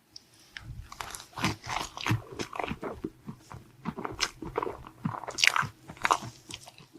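Close-miked eating: a person biting into and chewing a crisp dessert, a dense run of crunchy crackles that is loudest about five and a half seconds in.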